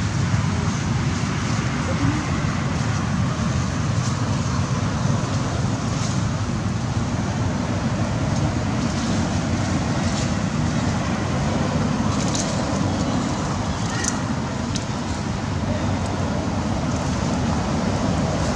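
Steady low rumbling background noise outdoors, with a few faint clicks near the end.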